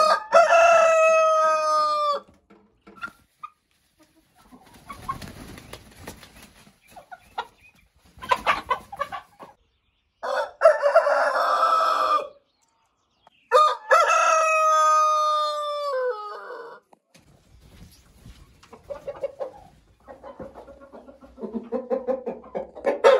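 Roosters crowing: two long crows, one at the start and one a little past the middle, each a drawn-out held call, with a rougher, buzzier call between them. Chickens cluck in short pulses near the end.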